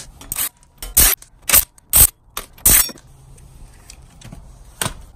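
Short, sharp clinks and scrapes: five in the first three seconds, about half a second apart, then a quieter stretch and one more near the end.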